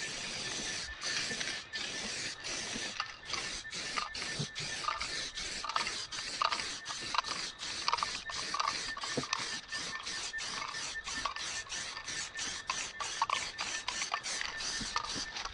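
Aerosol spray-paint can hissing in many short strokes, the spray cutting off briefly between strokes.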